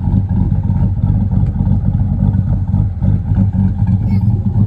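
Cammed Chevrolet Silverado engine idling with a choppy, uneven lope from its aftermarket camshaft.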